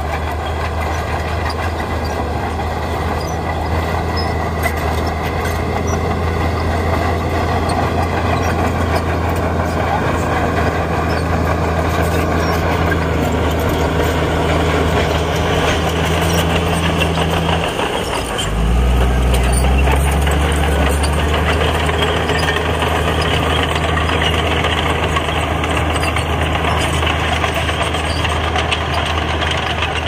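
Heavy diesel engine of earthmoving machinery running steadily. About eighteen seconds in, the engine note dips briefly, then comes back lower in pitch and a little louder.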